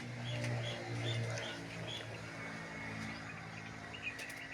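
A small bird chirping, short notes repeated about two or three times a second through the first two seconds, with a few more near the end, over a low steady hum.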